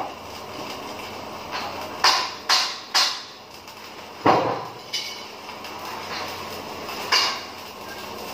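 Steady hiss of a stick-welding arc on a steel C-channel, broken by about five sharp metallic clanks that ring briefly, the loudest a little past the middle.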